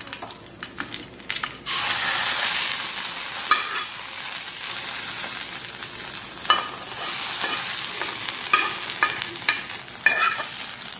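Hot coconut-oil tempering of mustard seeds, dried red chillies and curry leaves poured from a small frying pan into yogurt curry (moru curry). It sizzles suddenly about two seconds in, then slowly dies down, with a few clicks and scrapes of a spoon against the pan.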